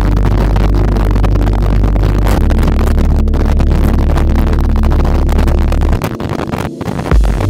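Motorcycle riding at highway speed: steady wind rush and a low engine drone. Background music runs underneath, and near the end the low drone drops away and a steady beat comes in.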